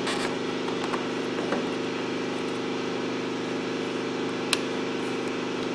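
Shop air compressor running with a steady hum, and a single sharp click about four and a half seconds in.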